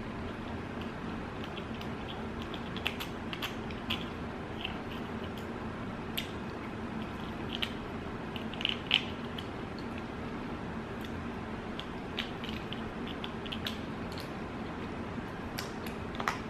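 Close-up eating sounds: chewing with scattered sharp clicks and crackles, the loudest about halfway through, over a steady low room hum.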